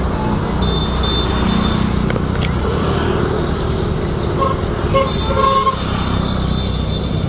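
Road traffic: a motor vehicle engine running steadily while under way, with several short horn toots between about four and a half and six seconds in.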